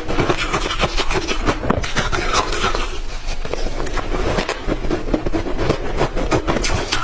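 Clear ice being crunched between the teeth close to the microphone: a dense, continuous run of sharp cracking crunches.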